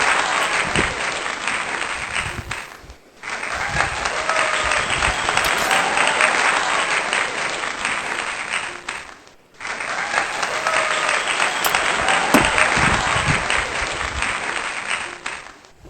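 Applause, a dense clatter of clapping with faint voices in it. It breaks off briefly twice, about three and nine and a half seconds in, and starts again abruptly each time, like a looped sound effect.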